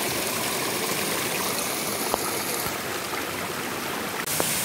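Steady rushing of a stream's running water, an even hiss with no break.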